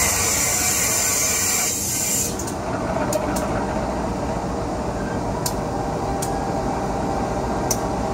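A loud hiss of air that cuts off about two seconds in, then the steady running of a CC203 diesel-electric locomotive rolling slowly past on the next track, with a few sharp clicks of wheels over the rails.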